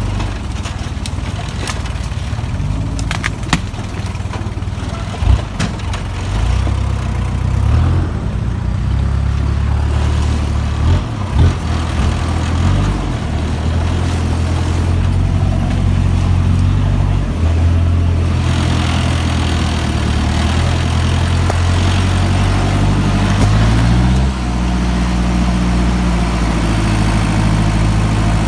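Kia Sportage 4x4's engine running under load as the SUV crawls along a muddy forest trail, its pitch stepping up and down with the throttle and rising in a rev about three-quarters of the way through. A few sharp knocks sound in the first half.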